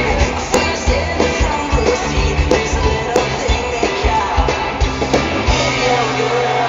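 Live rock band playing loudly, with a steady drum beat under amplified instruments and some singing.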